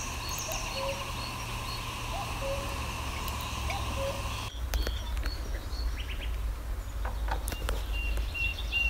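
Outdoor ambience of birds chirping over a steady low rumble. The background changes abruptly about halfway through, and a few light clicks follow in the second half.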